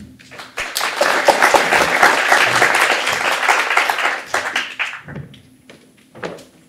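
Audience applauding: the clapping swells up within the first second, runs on evenly, and dies away about five seconds in, leaving a few scattered taps near the end.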